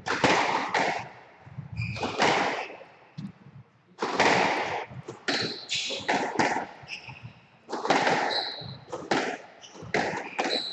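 Squash rally: the ball being struck by rackets and hitting the court walls, each hit ringing in the enclosed court, roughly once a second. Short squeaks from the players' shoes on the wooden floor come between some of the hits.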